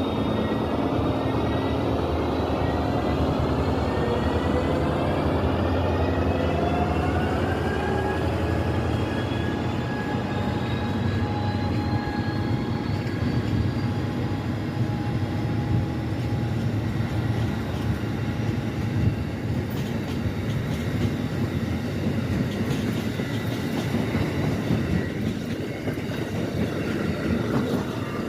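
Amtrak train rolling along, with a steady low rumble and clatter and several whining tones that rise slowly in pitch. The title calls it an unusual noise coming from a baggage car.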